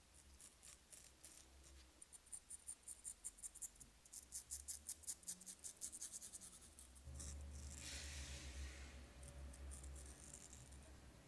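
Straight razor scraping through lathered beard stubble in quick short strokes, several a second. About seven seconds in, a softer steady hiss and a low hum come in.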